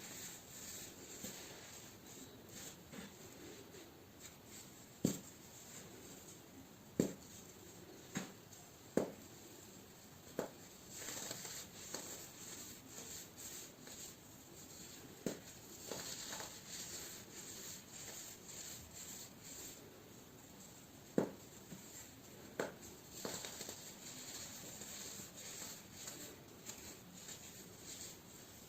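Baking soda being crushed and crumbled close to the microphone: a steady, gritty, scratchy crunching with sharp cracks every second or two, several in a row a few seconds in and more later on.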